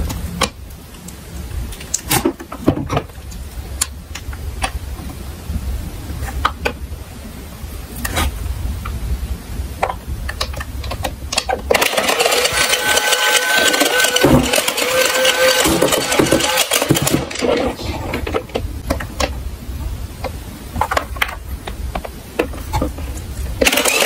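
Diecast toy cars rolling down a slope, a low rumble with scattered clicks and clatter. About halfway through, a louder pitched tone joins and holds to the end.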